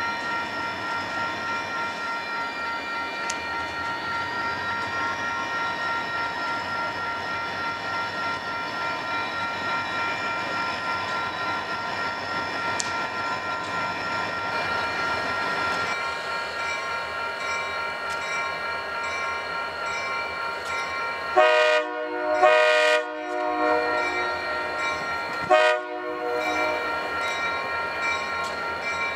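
Diesel freight locomotives running steadily as the train passes. About three-quarters of the way in, the lead locomotive's air horn sounds for a grade crossing: two blasts close together, then a shorter one a few seconds later.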